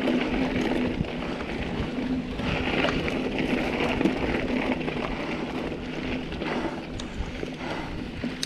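Mountain bike rolling fast down a dirt singletrack: tyres rumbling and rattling over the trail with a few knocks, and wind buffeting the camera microphone. A steady hum underneath fades out about two-thirds of the way through.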